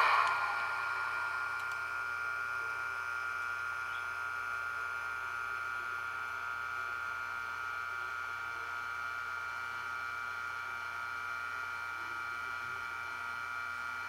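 ESU sound decoder in a Roco model of the BLS Re 475 Vectron playing the electric locomotive's standstill sound: a steady hum of several high tones over a faint hiss, from the model's small speaker.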